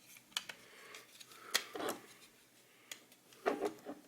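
Scattered small plastic clicks and brief rubbing as the parts of a vertical computer mouse's scroll wheel are handled and fitted together to test the repaired wheel.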